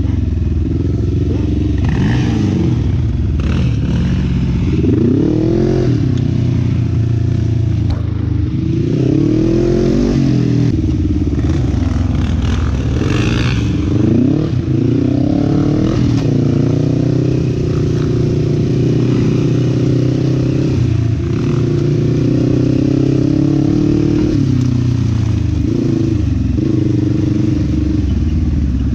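Sport quad (ATV) engine running continuously through the whole stretch, its revs rising and falling several times in the first half, then holding steadier.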